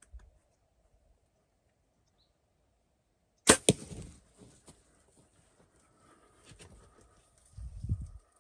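A single hunting shot at a turkey about three and a half seconds in: a sharp crack with a second crack right behind it, dying away within about half a second. Low thumps follow near the end.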